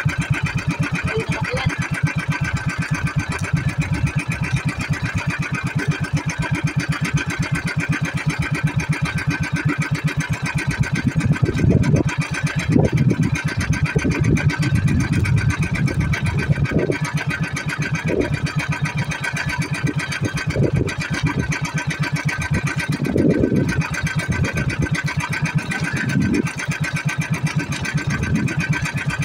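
Small engine running steadily with a fast, even beat, with short louder swells now and then through the second half.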